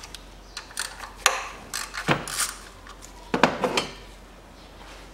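Metallic clicks and clinks of a socket ratchet working on the ignition-coil bolts: a series of separate sharp clicks over about the first four seconds, quieter near the end.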